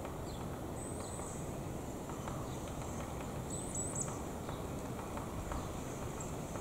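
Songbird calls: a few very high, thin, short notes around a second in and again near the four-second mark, over a steady low rushing noise of wind on the microphone.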